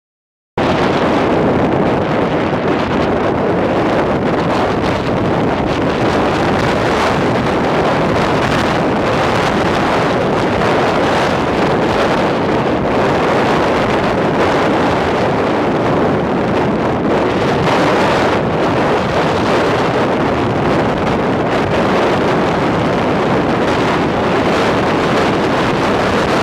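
Gale-force mountain wind blasting the camera microphone: a loud, continuous rushing roar that cuts in about half a second in and keeps up without a break.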